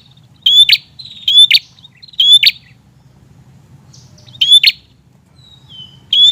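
Prinia (prenjak) calling loudly: short, sharp, chattering calls repeated about once a second, four in a row, then a pause of about a second and a half before more calls near the end.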